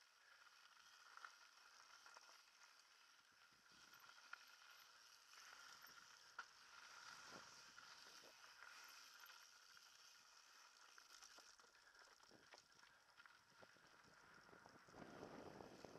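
Faint rolling noise of a mountain bike running down a dirt trail, with scattered clicks and rattles. Near the end the noise grows louder and rougher as the tyres run onto a wooden boardwalk.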